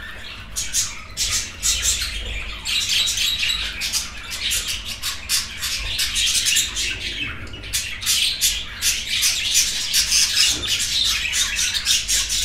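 Lutino budgerigars chattering in courtship: a fast, continuous run of high chirps and squawks, sparser for about the first two seconds.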